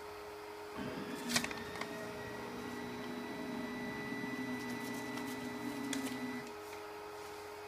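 Stepper motors of a delta 3D printer whining as they drive the print head, starting about a second in and stopping near the end, over a steady hum. A sharp click comes soon after the motors start, and paper rustles as a sheet is slid under the nozzle to check its height.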